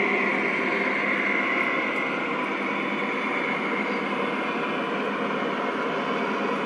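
Model train running along its track: a steady rolling rumble of wheels on rails with a high motor whine that fades after about two seconds.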